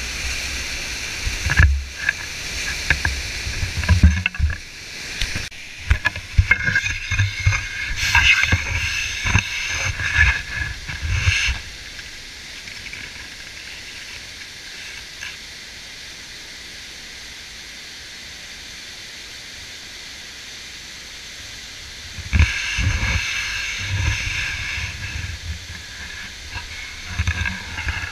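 Waterfall rapids rushing, a steady roar of water. Heavy rumbling buffets on the microphone come and go through the first twelve seconds and again from about 22 s on, with a calmer, even rush in between.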